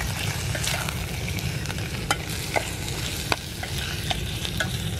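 Chicken frying in hot oil in a pan over a campfire: a steady sizzle with scattered sharp pops and spits.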